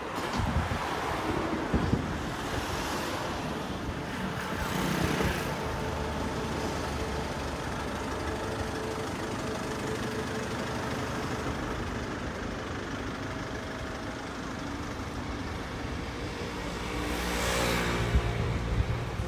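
Street traffic: a motor vehicle's engine runs steadily under the whole stretch, with vehicles passing about five seconds in and again near the end.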